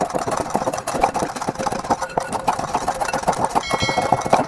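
Stainless wire balloon whisk beating a thin liquid marinade in a glass mixing bowl: a fast, continuous rattle of the wires clicking against the glass.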